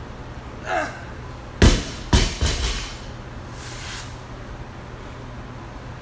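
Loaded barbell with rubber bumper plates dropped onto rubber gym flooring: a heavy thud about one and a half seconds in, then two smaller bounces that die away within a second.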